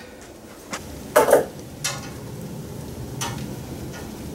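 A few separate knocks and clicks of wood and hardware being handled while gussets are fitted to a timber gantry crane, the loudest about a second in, over steady low background noise.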